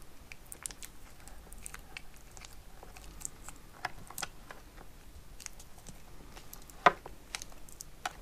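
Scattered light clicks and crackles of beaded wire branches and construction tape being handled as the branches are bound onto a wire trunk, with one sharper click about seven seconds in.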